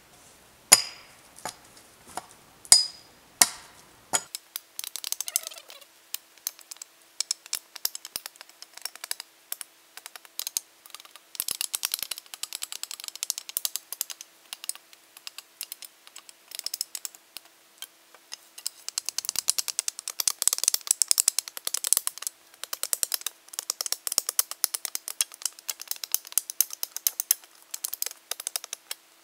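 A few sharp wooden knocks, then a long run of dense, rapid, irregular crackling and clicking from dry branches, poles and forest litter being handled.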